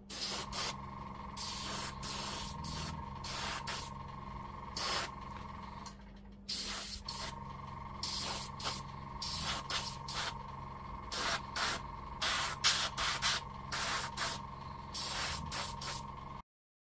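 Paint being sprayed in short bursts of hiss, about fifteen of them, over a steady hum. Everything pauses briefly about six seconds in and cuts off just before the end.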